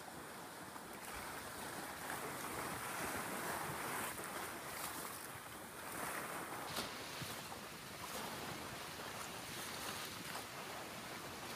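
Storm wind and choppy water sloshing, the noise swelling and easing in gusts, with wind buffeting the microphone.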